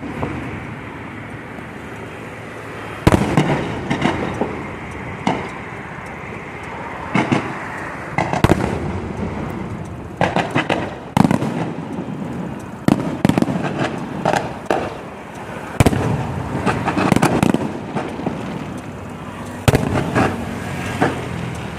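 Electronically fired fireworks going off: sharp bangs at irregular intervals over a steady hiss, the first about three seconds in, then coming thicker with quick runs of several bangs from about ten seconds on.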